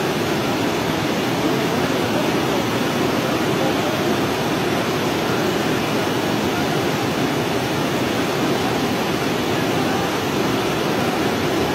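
Steady, even rushing of a muddy flash-flood torrent pouring over rocks.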